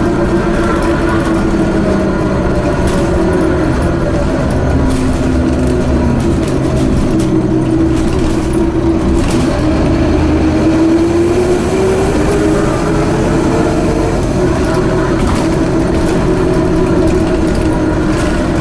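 Scania OmniCity bus heard from inside the saloon while under way: a strong whine from its broken rear differential over the rumble of the Scania DC9 engine and the road. The whine's pitch follows road speed, dipping about halfway through and then climbing again as the bus picks up speed.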